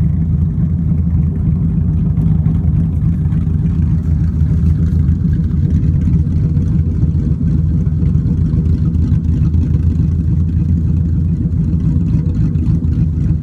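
2015 Mustang GT's 5.0 V8 with an exhaust delete, idling loud and open with a choppy, uneven lope from a Ghost Cam tune. The pitch stays level throughout, with no revs.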